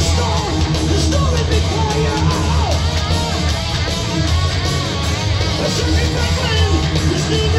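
Heavy metal band playing live in an arena, heard from the audience: distorted electric guitars and drums, with a lead line bending up and down in pitch over the top.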